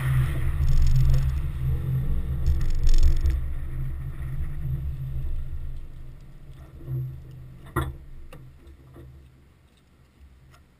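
Low rumble of an Infiniti G35 rolling at low speed, heard through a camera suction-mounted on the car's outside, fading after about six seconds as the car comes to a stop. About eight seconds in come a few sharp clicks as the car door is unlatched and opened.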